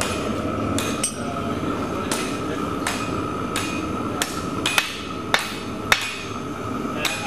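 Hand hammer striking a hot steel bar on an anvil: about ten blows, a little faster than one a second and unevenly spaced, each with a short metallic ring, the later ones sharper. A steady hum runs underneath.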